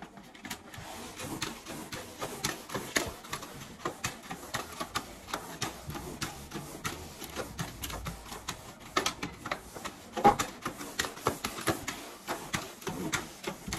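Sponge mop scrubbing back and forth over a ceramic tile floor, making a quick, irregular run of clicks and knocks with each stroke, with one louder knock about ten seconds in.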